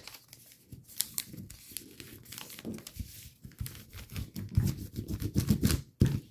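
Sheet of origami paper being handled and creased by hand: irregular crinkling and rustling, busier near the end, with a sharper crackle just before it stops.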